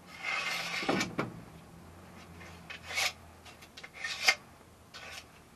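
Scraping and rubbing as a knife works grit and dirt out of a greenhouse frame channel: a longer scrape at the start, then two short scrapes about three and four seconds in, the second ending in a sharp click.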